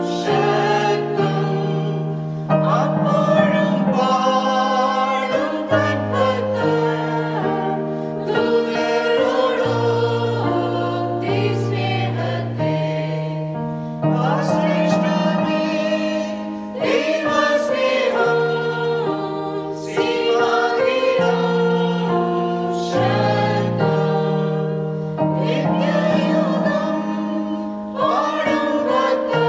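Mixed choir of adults and children singing a hymn in unison, accompanied by an electronic keyboard that holds bass notes under the voices.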